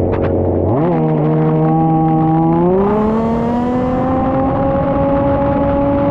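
Petrol engine of a 1/5-scale RC Formula 1 car running at speed. Its note steps up about a second in, climbs again around three seconds in, then holds a steady, high pitch as the car accelerates.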